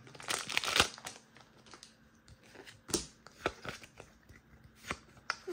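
Foil wrapper of a Pokémon booster pack crinkling and tearing open, loudest in the first second, followed by a few short light clicks and rustles as the pack and cards are handled.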